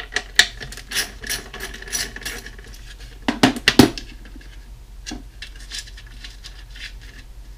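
Hand tools and metal hardware being worked on a wooden drum shell as the lugs are unscrewed: a run of small clicks, then three or four sharper knocks about three and a half seconds in, then fainter ticks.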